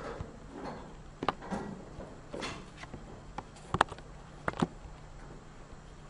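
Scattered sharp knocks and clicks in a room, about half a dozen, the loudest a little under four seconds in, over faint steady room noise.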